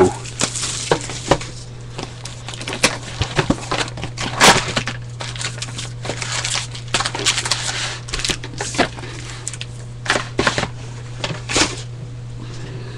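Packs and cards from a box of 2009 Topps Platinum football being unwrapped and handled: wrapper crinkling and tearing with scattered sharp clicks and taps, over a steady low hum.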